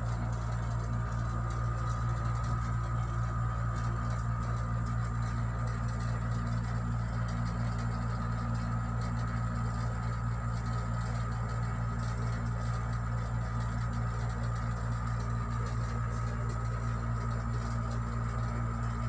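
Steady low machine hum with a fainter high-pitched tone above it, unchanging.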